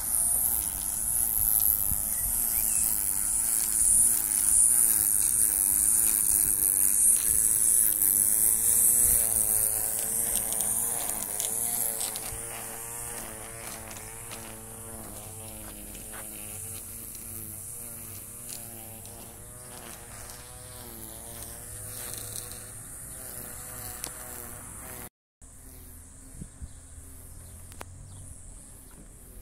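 String trimmer buzzing as it cuts grass, its pitch wavering up and down. It is loudest for about the first twelve seconds, then fades to a fainter buzz.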